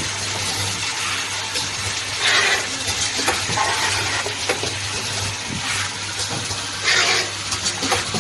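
Automatic membrane valve cap welding machine running: a steady hiss over a low hum, with louder surges of hissing about two seconds in and again near seven seconds, and scattered light clicks.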